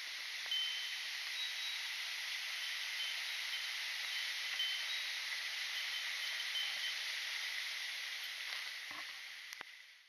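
Steady hiss of a slender waterfall and rain, with a few faint, brief, high tinkling notes now and then. It fades out near the end.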